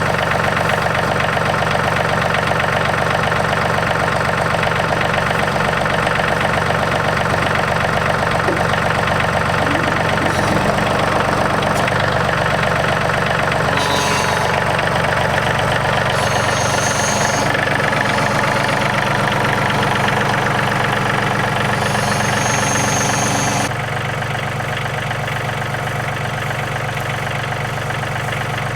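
Yanmar YT235 tractor's diesel engine running steadily while the front loader lifts a heavy pallet on clamp-on forks. Brief high hissing sounds come and go in the middle, and the engine sound drops a little about three-quarters of the way through.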